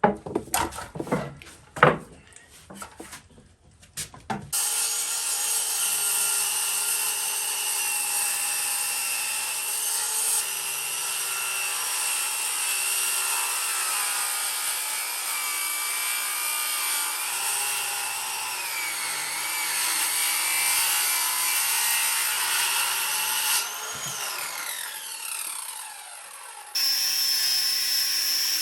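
Table saw cutting a thick cedar plank. A few knocks as the wood is handled, then the saw runs steadily for about twenty seconds, its pitch dipping as the blade takes load, and it winds down with a falling whine. Near the end it starts up again suddenly and runs.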